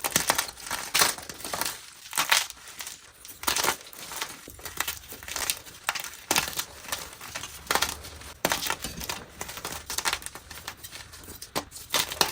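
Blocks of plain gym chalk being crushed, crunching and crumbling in irregular strokes, about one or two a second.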